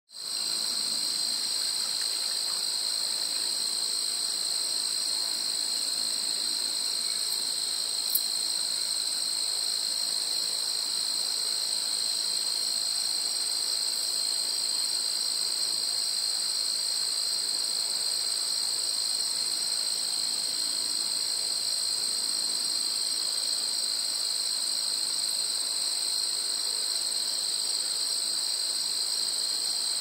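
Steady chorus of crickets: a continuous, even, high-pitched trill. A single sharp click sounds about eight seconds in.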